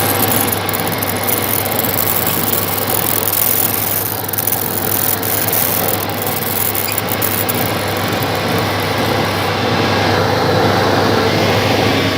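Metal-working lathe running: a constant low motor hum under an even mechanical noise.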